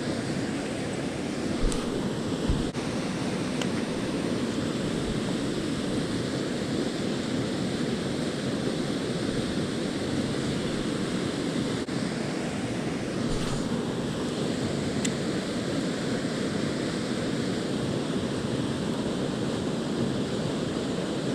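Creek water rushing steadily, a very loud, even wash of flowing water.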